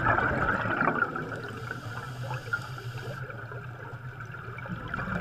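Underwater air bubbles rising and bubbling steadily.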